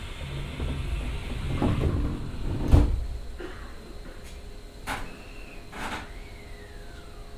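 Passenger doors of an E127 series electric train sliding shut, the sound building over about three seconds to a thump as they close. A few sharp clicks and brief whines follow, one falling in pitch near the end, as the train readies to depart.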